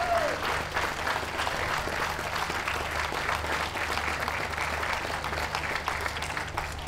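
Audience applauding, steady dense hand-clapping.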